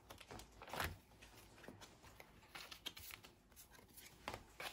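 Faint rustling and light clicks of Pokémon trading cards being handled and slid into the plastic sleeve pockets of a binder page, with the plainest click about a second in and another near the end.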